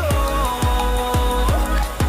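Background music: an electronic track with a steady beat of deep, falling bass hits under a held melody line.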